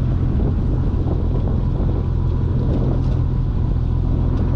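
Boat engine running steadily: an even, unbroken low rumble.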